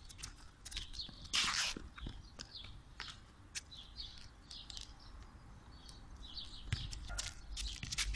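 Small birds chirping repeatedly in short high calls, with a few short knocks and a scuff about a second and a half in.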